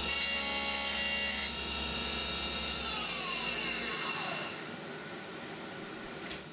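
CNC milling machine spindle taking a light finish pass in alloy steel with flood coolant, a steady high whine over a low hum. About three seconds in the whine falls away in pitch as the spindle winds down, leaving a quieter hiss.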